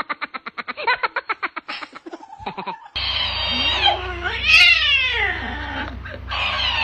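A rapid run of short pulses, about ten a second, then an abrupt change to a cat meowing loudly in long yowls that slide down in pitch, over a steady low hum.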